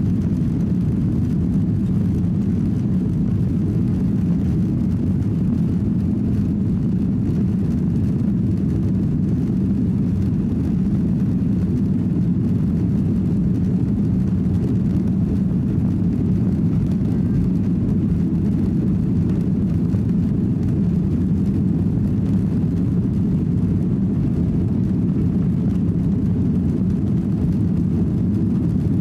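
Steady low rumble of a Boeing 737-800 heard from inside its cabin while taxiing, its CFM56 engines at low power. It holds an even level throughout, without the rise of a takeoff run.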